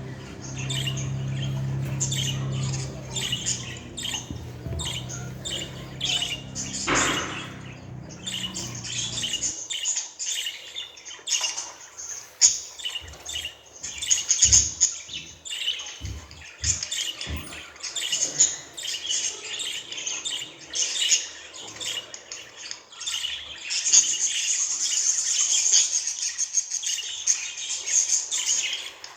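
Budgerigar chattering and warbling: a continuous run of rapid chirps and squawks, with a denser stretch of warble near the end. A low steady hum sits underneath for roughly the first third and then stops.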